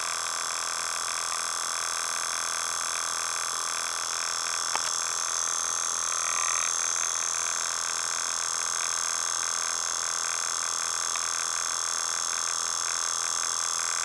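Homemade reed-switch motor running steadily at about 2500 RPM on 6 volts with an air-core coil (no metal core): a fast, even run of reed-switch clicks with the rotor spinning.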